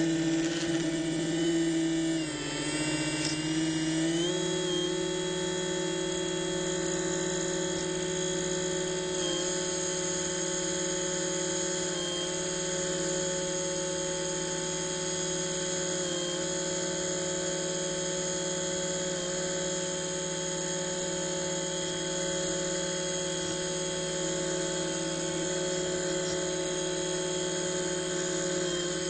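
A model submarine's electric drive motor runs with a steady whine. Its pitch steps up slightly about four seconds in, then holds.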